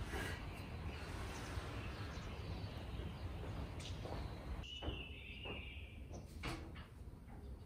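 Double-hung sash windows being slid open, the sashes rubbing in their frames with a few light knocks. A short high-pitched note sounds about five seconds in.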